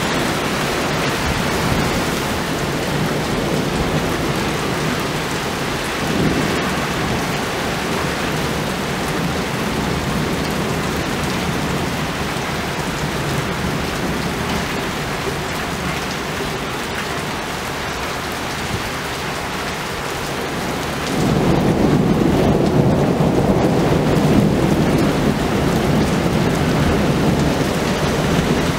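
Heavy thunderstorm rain falling steadily. Near the end a long, louder rumble of thunder rolls in and keeps going.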